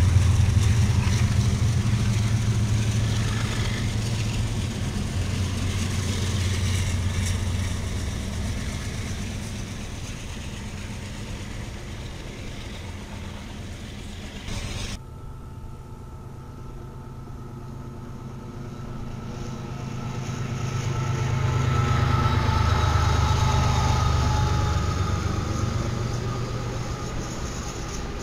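A passing train's diesel rumble, loud at first and slowly fading away. About halfway through the sound cuts to another train, whose low rumble builds, is loudest about two-thirds of the way through, and then fades again.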